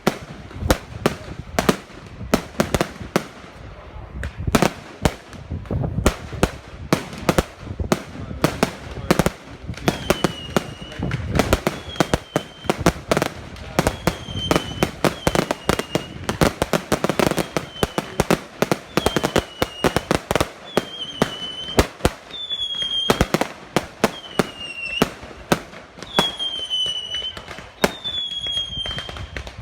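Fireworks display: a dense, continuous string of sharp bangs and reports. From about a third of the way in, short whistles that dip in pitch sound every second or two among the bangs.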